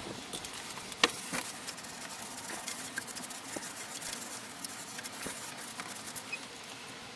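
Irregular light clicks, taps and scratchy rustling from small objects being handled, with one sharper click about a second in.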